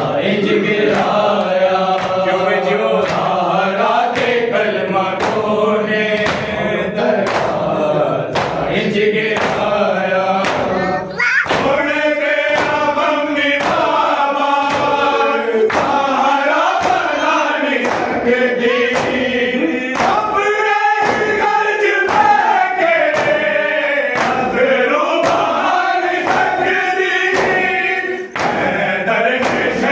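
A group of men chanting a noha, a Shia mourning lament, in unison, with a steady beat of matam chest-beating thuds keeping time, a little more than one strike a second.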